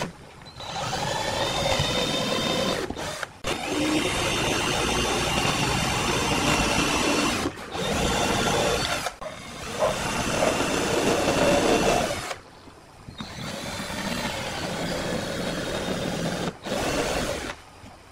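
Hitachi cordless drill boring small holes into a pine box, the motor whining and the bit cutting wood. It runs in about six stretches of a few seconds each, stopping briefly between holes.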